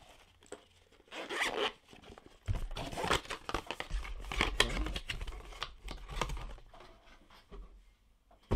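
Zipper on a sunglasses case being pulled open in a few scratchy runs, then rustling of the cloth pouch and packaging as the glasses are handled.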